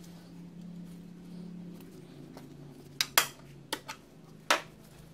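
Five sharp metallic clinks, bunched in the second half, as small metal parts of an outboard's choke solenoid and linkage are handled during reinstallation, over a low steady hum.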